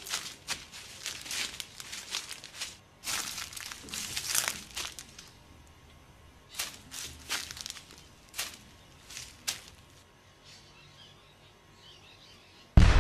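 Footsteps crunching through dry leaf litter in irregular runs, thinning out after about nine seconds. Near the end, a sudden loud explosion that dies away slowly, which sounded more like a landmine than a bomb.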